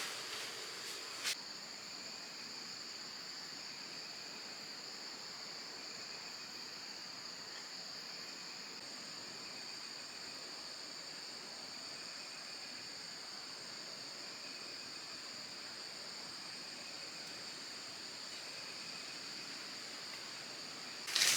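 Steady, high-pitched chorus of insects shrilling continuously, with a fainter chirp repeating about once a second beneath it. A single click comes about a second in.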